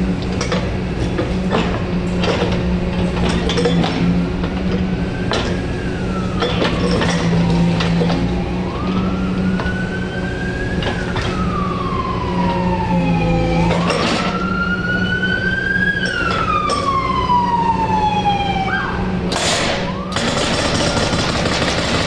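Excavator with a hydraulic breaker attachment: its diesel engine runs steadily, with scattered knocks from the breaker and a dense stretch of hammering near the end. A siren wails over it, rising and falling slowly several times.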